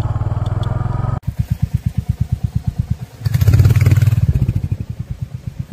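Royal Enfield Hunter 350's single-cylinder engine idling with an even thump, swelling louder for about a second near the middle.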